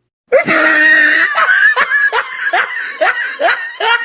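A person laughing loudly as a meme sound effect. From about a third of a second in, a held burst of laughter turns into a string of short 'ha' bouts, two or three a second, each falling in pitch.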